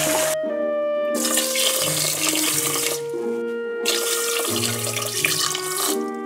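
Tap water running into a pot of rice as the rice is rinsed, a steady splashing hiss that breaks off twice for under a second. Background music plays underneath.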